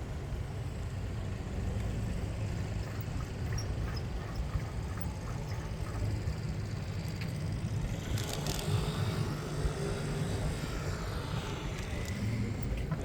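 Street sound recorded from a moving bicycle: a steady low rumble of wind and rolling, with city traffic. There is a short rattle of clicks about eight seconds in, and faint wavering tones near the end.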